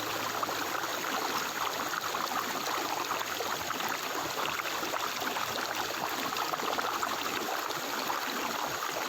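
Running water of a stream flowing steadily.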